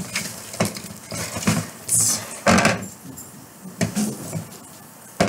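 A plastic mixing stick stirring sticky glue slime in a clear bowl: irregular knocks and clicks of the stick against the bowl, with two longer scraping rasps about two seconds in.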